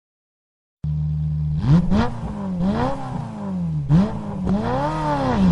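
TVS Apache RTR 200 4V motorcycle's single-cylinder engine starting about a second in with a steady idle, then revved with repeated throttle blips, its pitch rising and falling several times.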